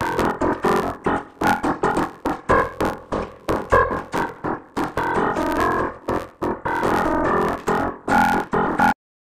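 A Samsung Galaxy phone ringtone put through voice-changer effects: a fast run of short synthesizer-keyboard notes that cuts off suddenly near the end.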